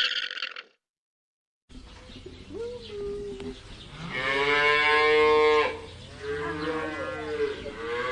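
Cow mooing, after a brief cut to silence: a short call, then one long, loud moo, then another wavering call near the end.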